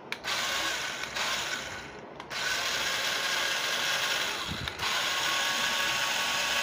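Electric drive motors and plastic gearboxes of a toy RC rock-crawler truck whirring as its wheels spin under throttle from the transmitter, in three spells with short breaks about two and four and a half seconds in. It runs on a 6-volt battery fitted in place of its original pack.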